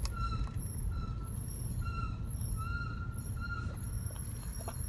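Hawk HP Plus track-compound brake pads on a Ford Focus ST squealing in a string of short high-pitched squeals over the car's low road and engine rumble while driving. The pads squeal even when the brakes are not applied, typical of a track pad in daily driving.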